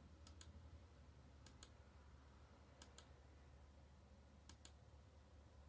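Faint computer-mouse button clicks: four quick press-and-release double clicks, one about every second and a half, as points on a playback timeline are selected.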